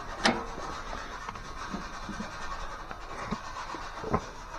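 Tools being handled on a garage bench: a few light clicks and knocks over a faint steady background, one just after the start and two more near the end.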